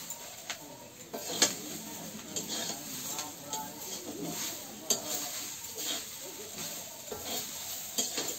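A metal spatula stirring and scraping moringa (drumstick) leaves frying in a steel wok, with a light sizzle and several sharp clinks of the spatula against the pan, the loudest about a second and a half in.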